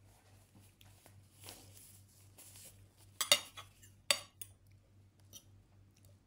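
Cutlery clinking against a plate during a meal: a few sharp clinks in the second half, the first and loudest about three seconds in.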